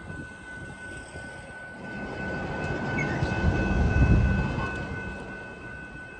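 Level crossing's electronic bell sounding a steady tone while a vehicle passes: its rumble swells about two seconds in, is loudest around four seconds, then fades.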